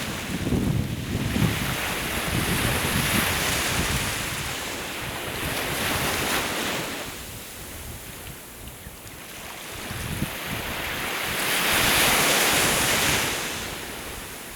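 Sea waves washing onto the shore, the surf swelling and ebbing in slow surges every few seconds. Wind gusts rumble on the microphone, mostly in the first couple of seconds.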